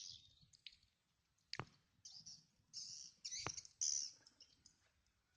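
Faint high-pitched bird chirps in short bursts, with two quick, steeply falling notes about one and a half and three and a half seconds in.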